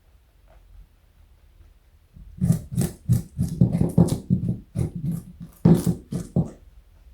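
A rabbit crunching a carrot close up: a quick run of crisp bites and chews, about four a second, starting about two seconds in and stopping shortly before the end.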